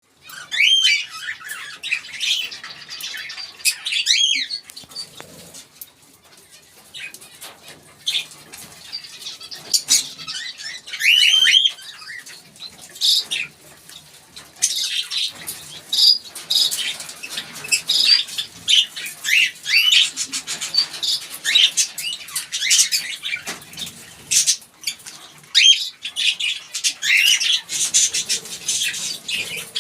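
A group of Fischer's lovebirds chirping and twittering: many short, high-pitched calls that sweep up and down in pitch, coming almost without pause, with scattered sharp clicks among them.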